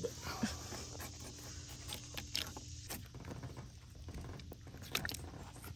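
Faint scattered clicks and scrapes of a knife and hands working a snapping turtle's leathery skin and shell on a wooden board, over a steady low hum.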